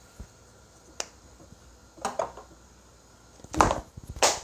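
A spoon knocking a few times against spice containers and the pan as spice is added: about five short, sharp clicks at irregular intervals, the loudest two near the end.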